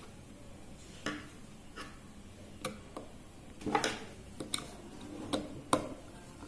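Irregular small clicks and taps, about ten of them, from a screwdriver and wire ends being worked into the screw terminals of an L298N motor driver board. The strongest come near the middle and near the end.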